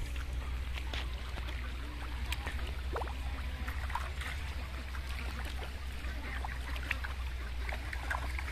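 Fish splashing and thrashing in shallow, muddy pond water: many small irregular splashes and slaps over a steady low hum.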